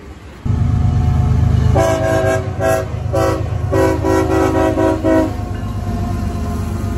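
CSX freight diesel locomotive passing close by, its engine rumbling loud and low. From about two seconds in it sounds its air horn in four blasts: three short ones, then one held for about a second and a half.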